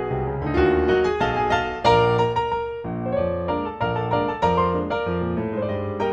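Background piano music, notes struck in quick succession.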